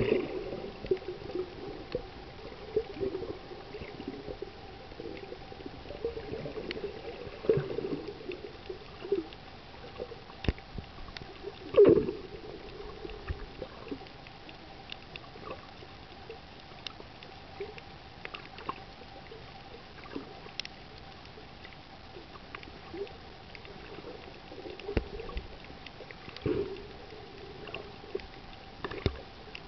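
Underwater water noise picked up by a submerged camera: irregular gurgling and sloshing with scattered faint clicks and a faint steady hum, and one louder knock about twelve seconds in.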